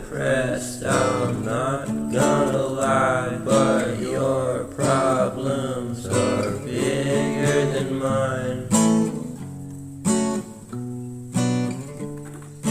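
Background song: strummed acoustic guitar with a sung vocal line, the voice dropping out about nine seconds in and leaving the guitar chords alone.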